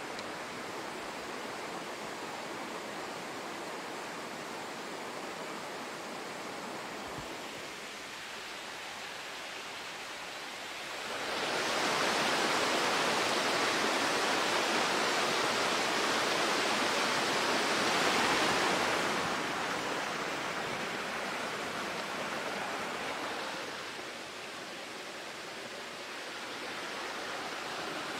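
Rushing water of a mountain stream, a steady hiss that grows markedly louder and brighter for about eight seconds in the middle before falling back.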